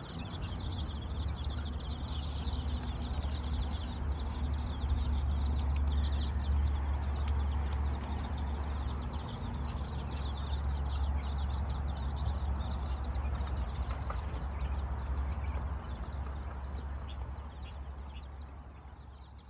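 Many baby chicks peeping, with lots of short, high, overlapping chirps over a steady low rumble. The sound fades out near the end.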